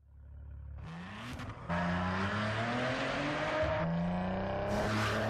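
Car engine accelerating: its pitch climbs steadily, drops once about four seconds in, then climbs again.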